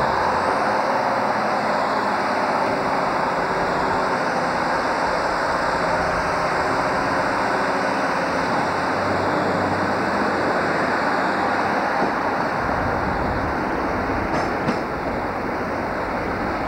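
Sprinter diesel multiple unit's underfloor diesel engines running at the platform, a steady mechanical drone that grows a little deeper in the last few seconds.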